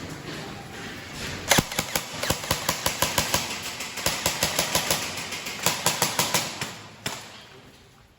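Airsoft guns firing in a mine tunnel: a fast, uneven clatter of sharp snapping shots over a hiss, starting about a second and a half in and dying away near the end.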